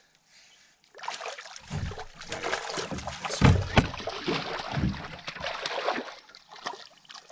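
A hooked lake trout thrashing and splashing at the surface beside a canoe as it is brought into a landing net, with knocks and thuds against the boat. The splashing starts about a second in and dies away near the end.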